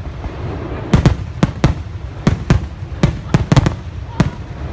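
Aerial fireworks bursting: a rapid, irregular string of about a dozen sharp bangs, some in quick pairs, over a low rumble.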